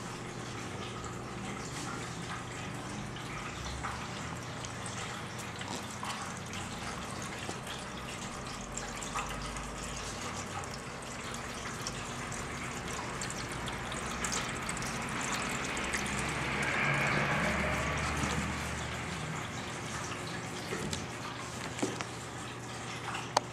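Pet drinking fountain's water trickling steadily over a low pump hum, the splashing growing louder for a few seconds past the middle.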